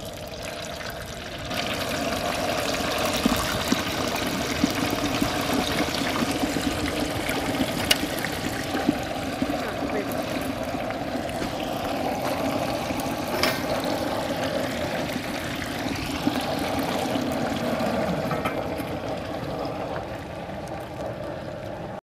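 Hot frying oil bubbling and sizzling in a stainless steel turkey fryer pot as a bird is lowered into it, louder from about a second and a half in, with a few sharp pops. It eases off slightly near the end.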